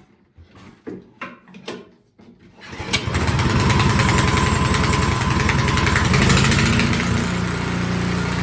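Toro Power Clear 721E snowblower's small four-stroke engine starting cold on full choke after priming: a few short knocks, then it catches about three seconds in and runs steadily.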